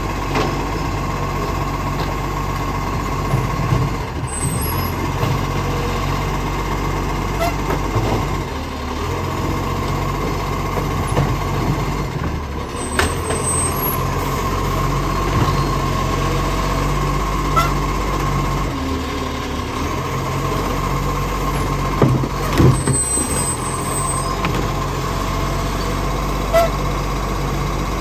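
Iveco Acco side-loader garbage truck running with a steady diesel hum and whine while its automated arm grabs and lifts a wheelie bin. A few knocks of the arm and bin and brief hisses of air break through it, at about 4, 13 and 23 seconds in.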